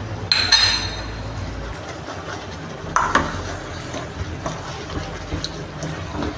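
Ladle stirring boiled potato pieces in thick masala in a metal pan, scraping and clinking against the pan. There are two louder hits: a ringing clink just after the start and another about three seconds in. A steady low hum runs underneath.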